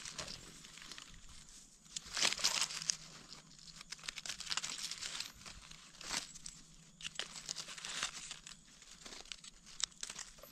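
Dry fallen leaves crackling and rustling in irregular bursts as gloved hands and a knife work through the leaf litter to cut and pick wild mushrooms, with a louder flurry of crackles about two seconds in.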